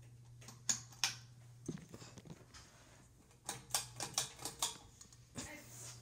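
Harbor Breeze Tilghman II 52-inch ceiling fan running with a steady low hum, with scattered sharp clicks and taps over it, several in quick succession in the second half.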